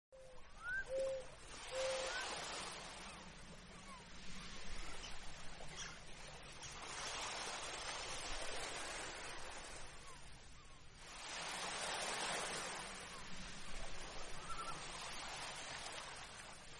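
Quiet nature ambience: a rushing noise that swells and fades every few seconds, with three short, low, even-pitched animal calls in the first two seconds and a few faint rising chirps later.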